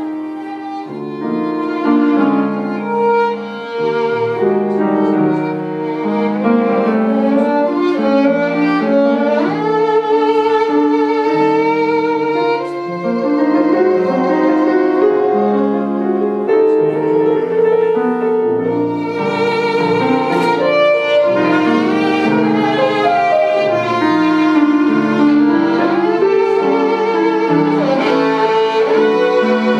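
Violin and piano duo: the violin carries the melody with vibrato and an occasional sliding note, over piano accompaniment.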